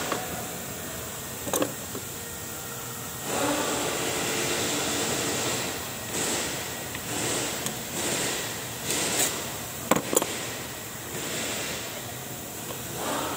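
Pliers and a spring hose clamp being worked on a fuel-filter hose: a few sharp metallic clicks, one about a second and a half in and a cluster near ten seconds, over a steady background noise.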